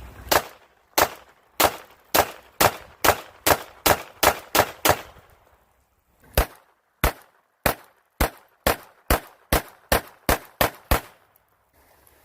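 A Glock pistol with an Advantage Arms .22 Long Rifle conversion slide firing semi-automatically, about two shots a second: two strings of roughly eleven shots each, split by a pause of about a second and a half near the middle.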